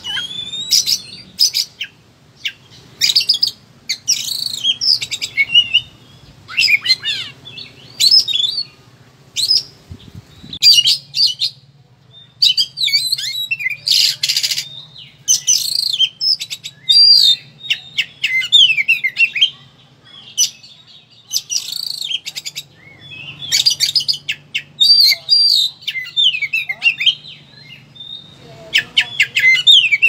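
Oriental magpie-robin singing hard in its aggressive fighting mode, phrase after phrase of varied whistles, trills and chirps with short pauses between, pouring out its full repertoire.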